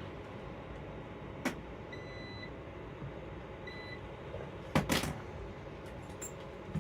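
Robot vacuums running with a steady hum. Two short electronic beeps come about two and four seconds in, with a click before them and a louder clatter near the end.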